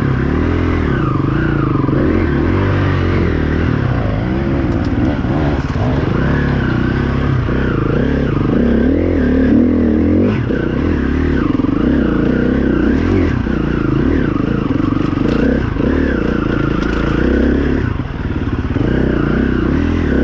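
Enduro dirt bike engine revving up and down without pause as the throttle is worked on a hill climb, with occasional clatter.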